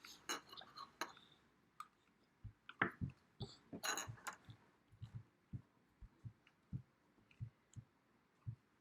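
Play-Doh being worked on a table with plastic tools: sharp plastic clicks and handling in the first second and again around the fourth second, then a steady run of soft low thumps, about two a second, as the dough is rolled out and patted down.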